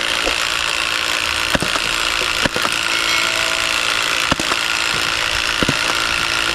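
Battery-powered toy ball machine gun running continuously, a steady mechanical whir with a few sharp clicks.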